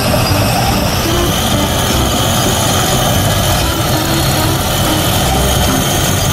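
Heavy bulldozer diesel engine running steadily with a deep rumble.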